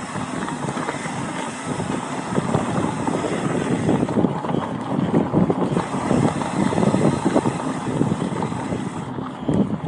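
Mountain bike riding over a rough dirt singletrack: tyres rolling over bumps and rocks and the bike rattling in quick irregular knocks, with wind on the microphone. It gets rougher and louder from about two seconds in.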